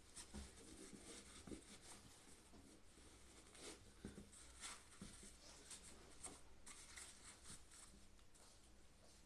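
Faint, irregular scratching and rustling of hands working the laces of a new sneaker, with a few soft taps.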